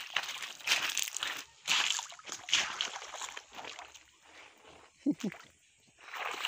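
Wet mud and sand scraping and sloshing under children sliding down a rain-soaked slope. It comes in irregular bursts that thin out after about three and a half seconds and pick up again near the end, with a short voice about five seconds in.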